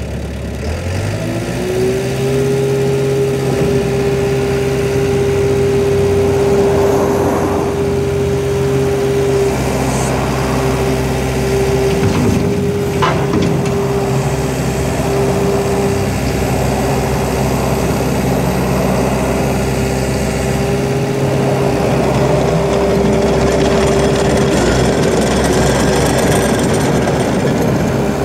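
2006 Takeuchi TL150 skid steer's diesel engine rising in speed about a second in, then running steadily with a high hum. A few swells of louder noise and a sharp click about halfway through come from the machine working.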